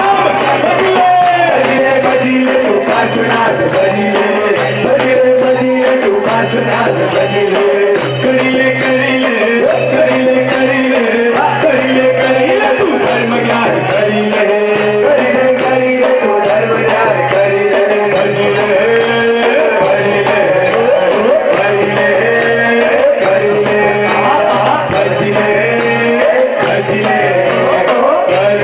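Live devotional group music: voices singing over a drum and jingling hand percussion that keep a steady, fast beat, with a repeating bass pattern underneath.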